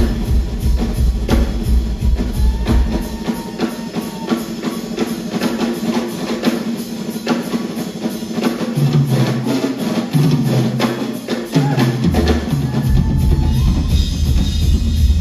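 Live drum kit solo: fast runs of strokes with snare and kick drum. About twelve seconds in, an electric bass guitar comes back in with a deep low line under the drums.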